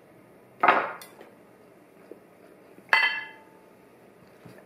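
A drinking glass clinks once with a short ringing about three seconds in, as it is picked up from the table. About half a second in there is an earlier short scraping knock on the tabletop.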